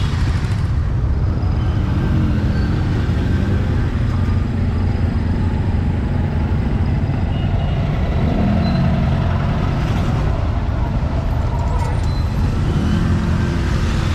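Steady street traffic noise, road vehicles running past without a break, with people's voices rising briefly now and then.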